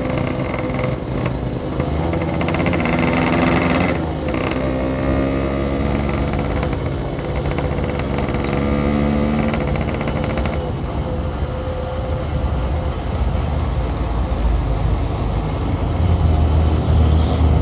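Yamaha RX-King's 135 cc two-stroke single-cylinder engine running under way, its pitch climbing twice as it accelerates, then easing off about two thirds of the way through.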